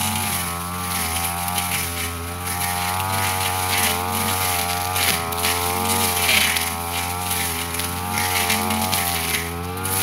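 Backpack brush cutter engine running at high speed while cutting grass and undergrowth, its pitch dipping and recovering over and over as the blade bites into the growth.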